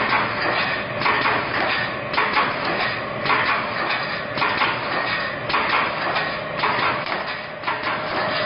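Construction mesh welding machine running, a steady clattering noise with a louder stroke about once a second as it cycles.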